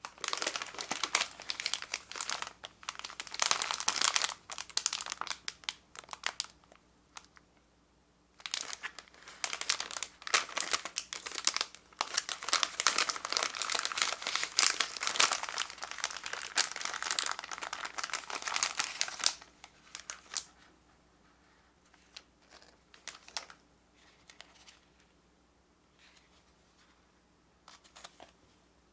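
Plastic food wrappers crinkling under the hands as a swiss roll cake's wrapper is opened. Dense crinkling for about six seconds, a short pause, then a longer run of about eleven seconds, thinning to a few faint crackles near the end.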